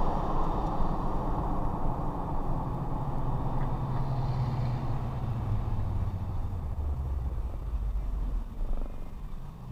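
Car engine and road noise heard from inside the moving car. The engine note falls from about four seconds in as the car slows, and the sound grows quieter near the end.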